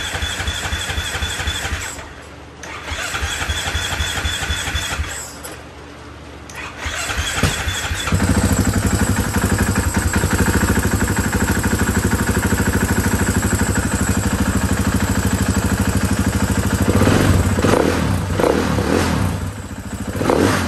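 2016 KTM 500 EXC's single-cylinder four-stroke engine on its electric starter: it cranks briefly, stops, cranks again, then on a third try catches about eight seconds in and settles into a steady idle. A few short louder bursts come near the end.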